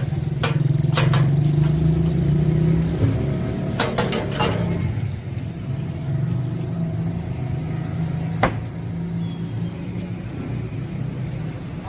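Steady low rumble of a running vehicle engine, with sharp metallic clinks of a steel ladle against a steel pot and plates: two early on, a quick cluster about four seconds in, and one loud clink past eight seconds.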